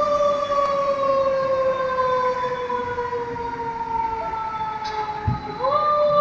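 Fire ladder truck's siren wailing. It falls slowly in pitch for about five seconds, then climbs quickly again near the end.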